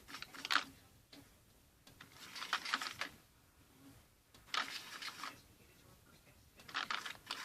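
Short bursts of rustling and scraping, about four times, from hands working with the coloring and the slime mixture.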